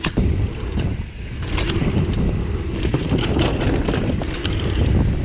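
Wind buffeting the microphone in a steady low rumble as a full-suspension mountain bike descends a rough trail, with scattered clicks and rattles from the bike over the bumps.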